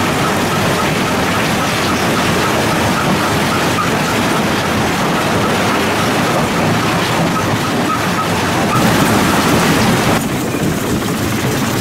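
Lippmann 3862 single-toggle jaw crusher running and crushing rock: a loud, dense rattling and grinding din of stone in the jaws over the drone of the machine. About ten seconds in the sound turns duller.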